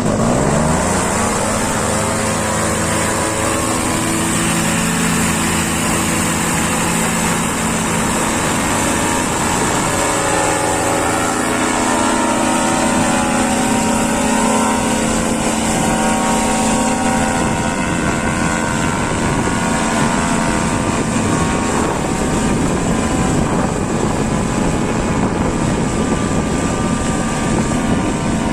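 Paramotor engine and propeller revving up sharply in the first second, then running steadily at high throttle for takeoff, with a brief change in pitch around ten seconds in.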